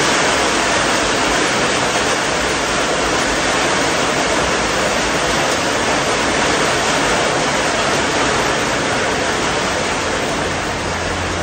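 Heavy rain falling, a steady loud hiss that eases slightly near the end.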